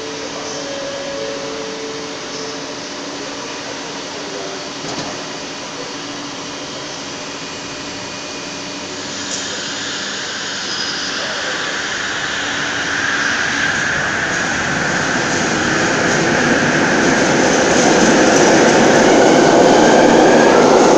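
Bombardier Innovia ART driverless metro train on the Kelana Jaya line, standing with a steady electrical hum and a short two-note tone in the first couple of seconds. It pulls away about nine seconds in, and its running noise builds steadily, loudest near the end as the cars pass close.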